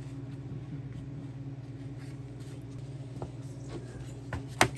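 A steady low hum with a few faint taps of kitchen handling, then a single sharp knock near the end, the loudest sound, as something is handled on the wooden butcher-block counter.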